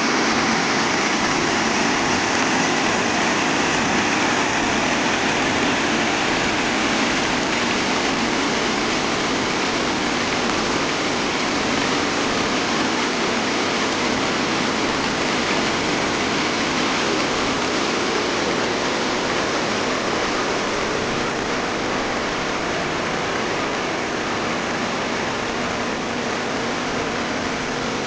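Steady rush of white water pouring down a rock cascade at a waterfall, easing off a little toward the end.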